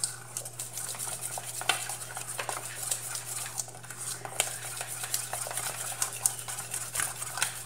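A spoon stirring a thick, wet, grainy mixture in a stainless steel pot, with irregular scraping and clinking against the metal sides.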